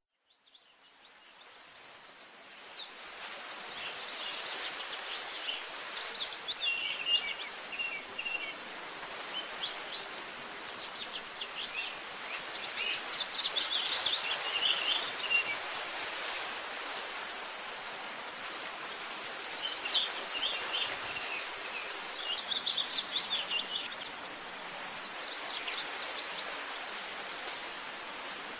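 Birds chirping in short high bursts over a steady rushing background noise, fading in from silence over the first couple of seconds.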